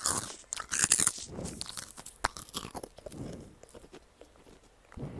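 Close-up crunching and chewing of a dry, crisp snack: a run of loud crunchy bites in the first second or so, then scattered crunches that fade out about three seconds in.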